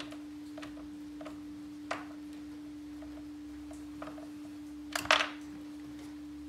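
Light, spaced clicks of a hand tool tightening the battery hold-down bolt, with a louder metallic clatter of tools being handled about five seconds in. A steady hum runs underneath.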